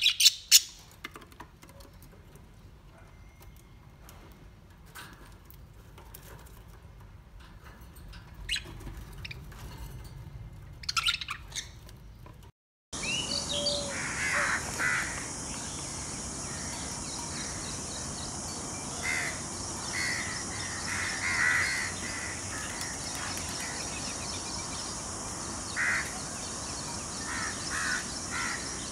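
Budgerigars chirping now and then, with a burst of loud, sharp calls at the start. After a brief break, parakeets give repeated squawking calls over a steady high-pitched drone of insects.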